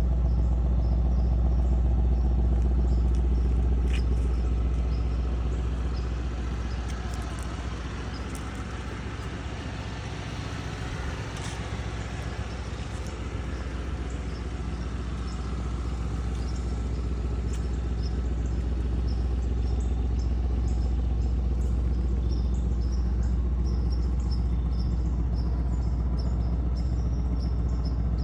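Mercedes-AMG C63 S engine at cold idle, running steadily with a deep even exhaust hum. It gets quieter for a few seconds in the middle, then settles back to the same steady idle.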